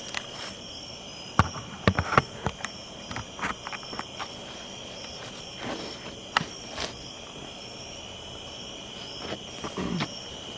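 Steady high trilling of insects, with a few scattered clicks and knocks about 1.5, 2, 3.5 and 6.5 seconds in.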